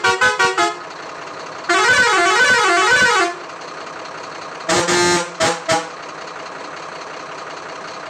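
Truck air horn sounding: a few quick short toots, then a longer warbling blast whose pitch rises and falls about three times, then three more short toots.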